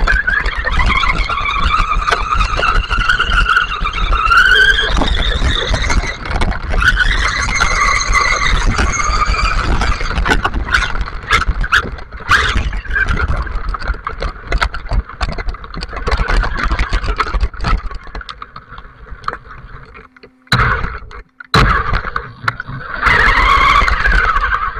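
Electric motor and gears of a WLtoys RC buggy whining, the pitch rising and falling with the throttle, over the rumble and knocks of its tyres and suspension on wet gravelly sand, heard from a camera mounted on the car. The sound drops for a few seconds near the end, cutting out briefly twice, then the whine surges again.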